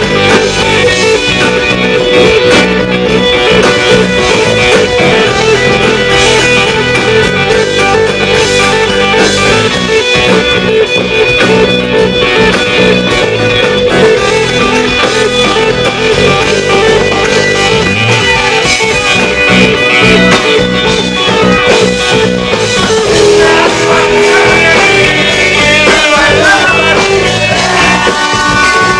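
Song with guitar, in a rock style, during an instrumental passage.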